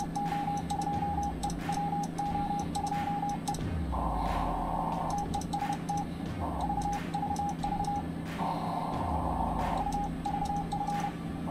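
Morse code sidetone from an Icom IC-7610 transceiver sending CW: a steady beep of about 800 Hz keyed on and off in dots and dashes, marking the rig transmitting into the watt meter. Twice, for about a second each, the beep gives way to a raspier buzz at about the same pitch, over a steady low hum.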